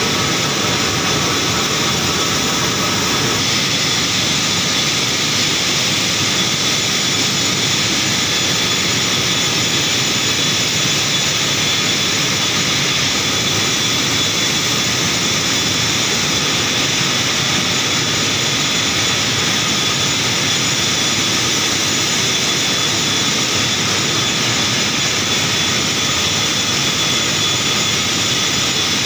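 Paper machine running in a paper mill: a loud, unbroken roar of rolls, drives and air, with a faint steady high whine over it.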